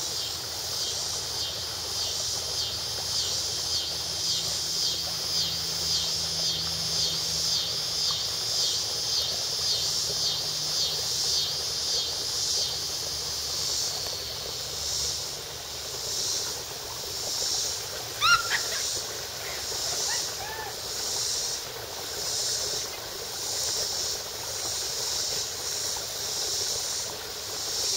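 A chorus of singing insects, a high-pitched pulsing drone that beats about twice a second and slows to about once a second in the second half. About two-thirds of the way through, a bird gives a short run of quick whistled chirps.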